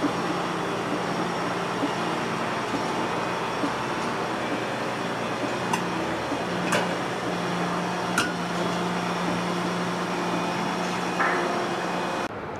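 Volvo EC750E HR high-reach demolition excavator travelling on its crawler tracks: the machine runs with a steady low hum, with a few sharp metallic clanks from the tracks around the middle. Near the end the sound cuts suddenly to a quieter background.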